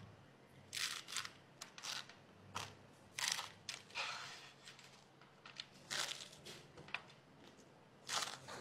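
Close-miked crunching of dry, stiff mie lidi stick noodles being bitten and chewed, in a dozen or so irregular sharp crunches.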